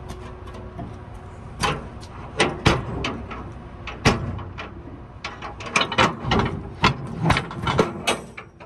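A run of irregular sharp metal clanks and knocks, some with a brief ring, from a semi-trailer's rear door hardware (latch handles and lock rods) being worked to open the doors.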